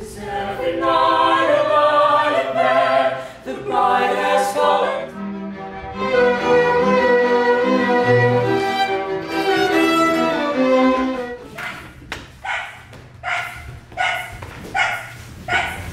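Background music: sustained string-like chords for about the first eleven seconds, then a run of short rhythmic hits, about two a second, to the end.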